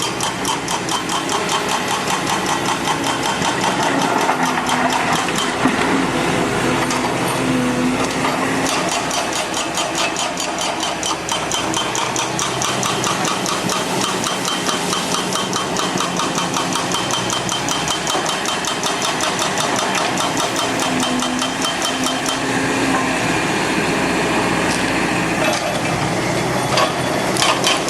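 Hydraulic excavator's diesel engine running steadily, with a fast, even clatter over the engine hum. There are a few louder knocks near the end.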